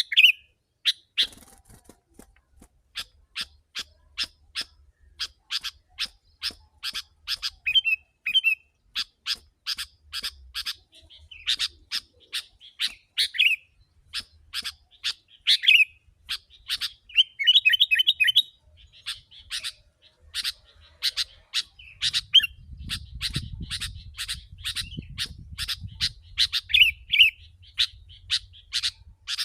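Sooty-headed bulbul (kutilang) calling non-stop: a long run of sharp, clipped chirps about three a second, broken now and then by short warbling phrases.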